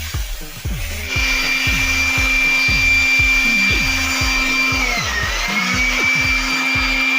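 Electric motor of a power tool used for cleaning an air-conditioner, starting up about a second in and running with a steady high whine that dips briefly about five seconds in before recovering. Background music with a steady beat plays throughout.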